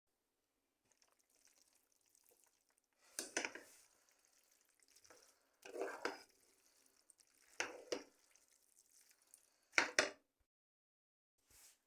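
Spaghetti being stirred and mixed with tomato sauce: four separate scraping, squelching strokes about two seconds apart, the one about ten seconds in the sharpest.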